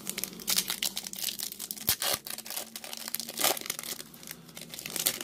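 A trading-card pack's foil wrapper being torn open and crinkled in the hands: a run of irregular crackles, sharpest about two seconds in and again about three and a half seconds in.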